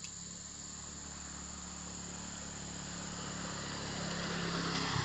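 Insects trilling steadily, with a low engine hum that grows steadily louder, taking over near the end.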